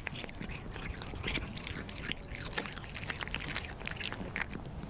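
Stray cats chewing freshly caught raw fish: a rapid, irregular crunching and clicking of teeth.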